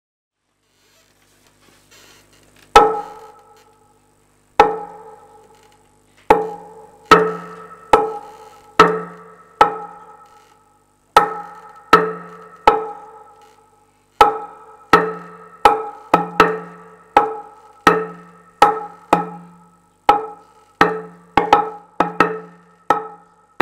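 A wooden percussion instrument, struck one hit at a time, each hit ringing briefly at the same pitch. The strikes begin slowly and unevenly about three seconds in, then come faster and closer together towards the end.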